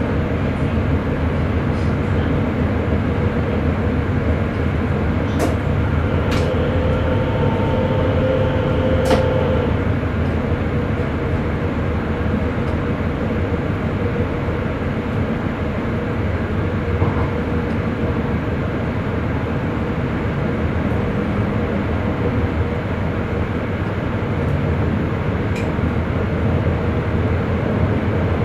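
Sprinter electric commuter train running along the track, heard from inside the driver's cab: a steady rumble of wheels and running gear, with a few sharp clicks about five to nine seconds in and a faint whine around the same time.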